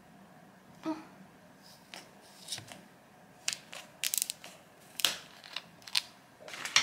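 Plastic screw cap of a makgeolli bottle being twisted and the bottle handled: a run of crisp clicks and crackles, thicker in the second half, with the sharpest click near the end. No fizz of escaping gas: the makgeolli has no carbonation left.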